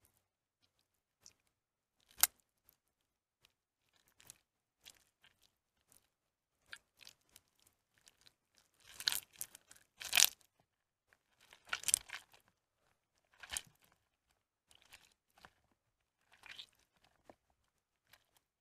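A soaked, mushy bar of soap squeezed and torn apart by hand, giving irregular wet crackling and squishing bursts. There is a single sharp snap about two seconds in, and a louder run of crunchy tearing about halfway through.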